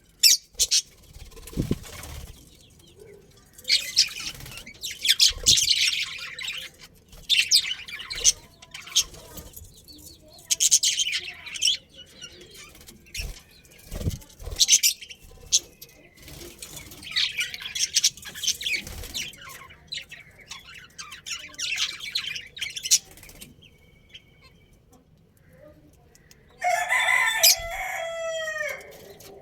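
Budgerigars chirping and chattering in repeated bursts of high, busy twittering. Near the end comes a louder, lower bird call made of a run of quick falling notes.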